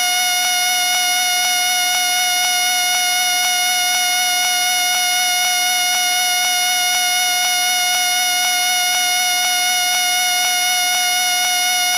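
A whistle blown without a break: one steady shrill tone with a faint regular pulse about two or three times a second.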